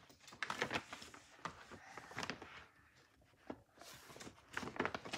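Hardcover picture book being handled and its pages turned: faint scattered knocks, taps and paper rustles.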